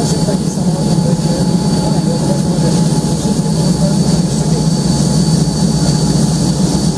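Boeing 787 Dreamliner's jet engines running at taxi power as the airliner rolls past: a steady low rumble with a thin, high, steady whine over it.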